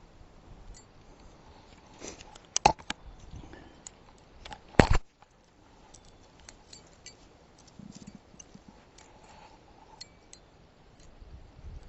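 Fishing tackle being handled: scattered small metallic clinks and clicks, with two sharp knocks about two and a half and five seconds in.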